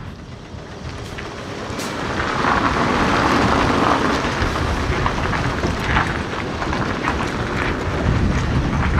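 Heavy flatbed tractor-trailer loaded with cut steel bridge beams rolling slowly past, its engine and tyres rumbling as it comes closer about two seconds in, with scattered metallic clanks from the steel load.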